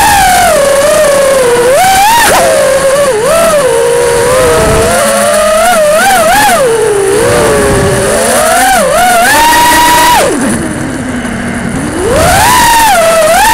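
Electric motors and propellers of an FPV quadcopter whining, heard from the camera on the quad itself, the pitch gliding up and down constantly with the throttle. About ten seconds in the whine drops low and quieter for a couple of seconds, then climbs back up.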